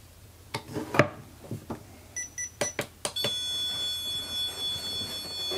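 REM pod being set down and switched on: a few handling clicks and knocks, then a quick series of short electronic beeps about two seconds in. From about three seconds in comes a steady high-pitched electronic tone as the unit calibrates, which is slow to finish.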